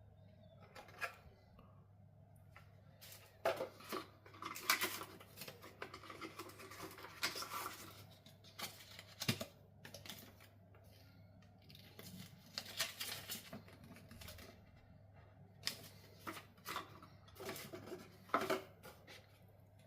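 Irregular clicks, taps and rustling of a small product box and its contents being handled and unpacked, in scattered short bursts.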